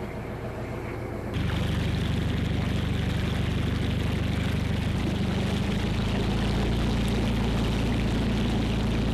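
River boat's engine running at a low idle, then from about a second and a half in a louder, harder-running engine with water churning and rushing past as the boat gets under way.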